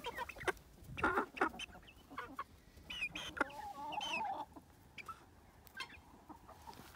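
Chickens clucking with many short calls that bend in pitch, and one longer wavering call about three and a half seconds in.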